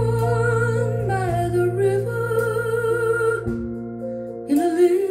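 A recorded female vocal song played back over Pylon Diamond 25 floor-standing hi-fi speakers and picked up by a phone's microphone in the room. A long held sung note wavers over a sustained accompaniment with deep bass. The bass drops away about three and a half seconds in, and a new vocal phrase begins near the end.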